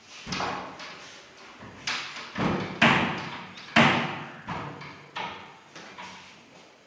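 A run of wooden knocks and thuds as a laminated plywood wardrobe's doors and inside panels are handled, some seven strikes with the two loudest about three and four seconds in, echoing in a bare room.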